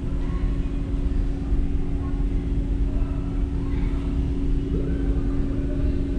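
Steady low rumble with a constant hum, the indoor ambience of a large exhibit hall, with faint snatches of distant sound above it.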